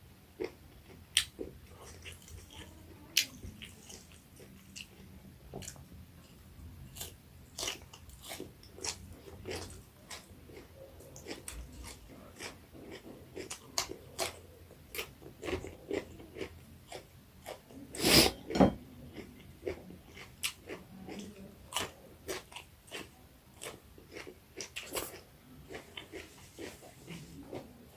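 Close-up eating sounds: a person biting and chewing fried pork and curry, with irregular crunches and mouth clicks. A pair of louder knocks comes about two-thirds of the way through.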